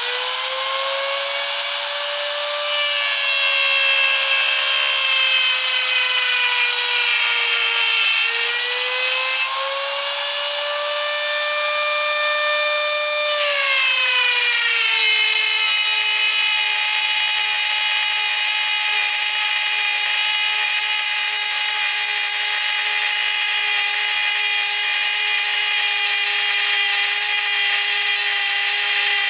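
High-speed spindle motor of a Brute mini mill whining loudly while its end mill cuts aluminium about 1/8 inch deep. The pitch sags and recovers in the first half, then drops about halfway through and stays lower and steady.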